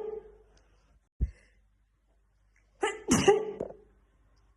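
A woman sneezing in a fit: the tail of one sneeze fades at the start, and a full sneeze about three seconds in has a voiced intake followed by a sharp "choo". A brief low thump comes about a second in.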